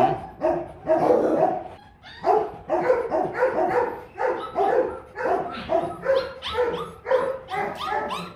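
Dog barking over and over, about two barks a second.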